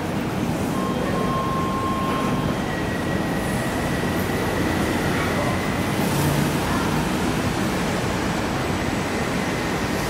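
Steady noise of a DLR B07-stock train standing at the platform with its equipment running. A faint high whine comes and goes in the first half.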